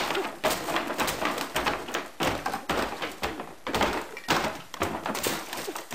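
A rapid, irregular run of thuds and knocks, about two a second, as something on a floor is struck over and over while being smashed up.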